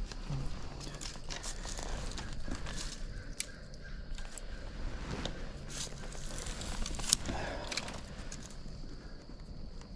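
A person moving through dry grass and brush: irregular crunching and rustling of vegetation underfoot and against clothing, with a sharper snap about seven seconds in.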